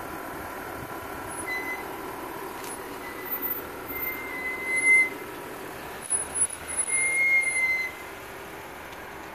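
Jeep Wrangler JK engine running as the Jeep backs out and pulls away at low speed. Several short high-pitched squeals come and go between about a second and a half and eight seconds in.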